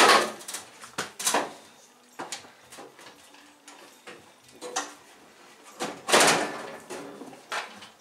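Sheet-metal outer cover of a microwave oven being slid back and lifted off its chassis: clunks and knocks of the metal shell, with a longer scrape about six seconds in.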